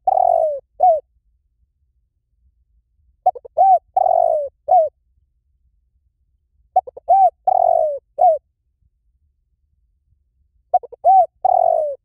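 Spotted dove cooing: each phrase is a few quick short coos, a longer drawn-out coo and one short closing coo, repeated about every three and a half seconds.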